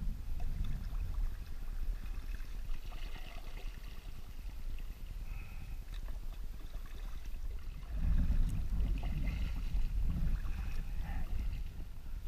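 Kayak moving through calm water under paddle, with water splashing, dripping and gurgling around the paddle and hull. An uneven low rumble underneath grows louder about eight seconds in.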